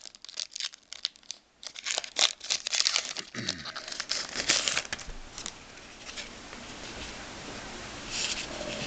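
Hockey card pack wrapper being torn open and crinkled, with dense crackling over the first three seconds, then quieter rustling as the cards are handled.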